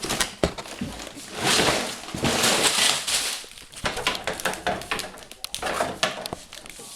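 Contents of a Lego set box, plastic bags of bricks and loose parts, being tipped out onto the floor: rustling and clattering with many small clicks, in uneven surges.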